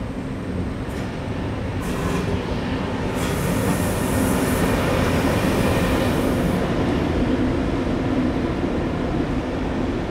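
A train moving through a station, with a steady low drone that swells a little. A few seconds of hissing noise come in the middle.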